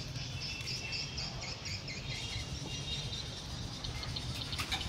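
Outdoor street ambience: a steady low rumble with short high chirps repeating about three times a second through the first half, then more scattered.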